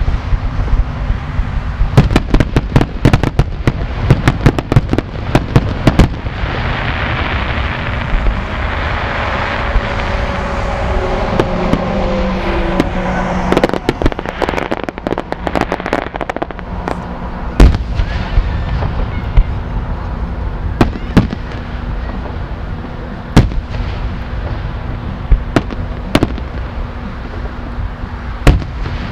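Fireworks display: a rapid volley of bangs, then a long crackling hiss with a few falling whistles, another cluster of bangs, and then single booms every few seconds. A steady low hum runs underneath.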